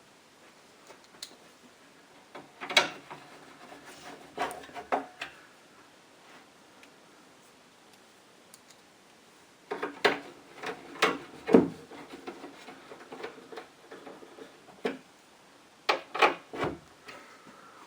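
Cooker door being put back together by hand: knocks, clicks and rubbing as its glass panels and top trim are handled and fitted, in three short bursts near the start, in the middle and near the end.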